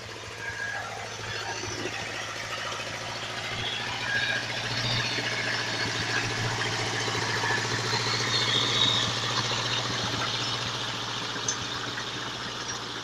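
Forestry skidder's diesel engine running steadily while it pulls a bundle of chained logs. It grows louder over the first eight seconds or so, then eases slightly near the end.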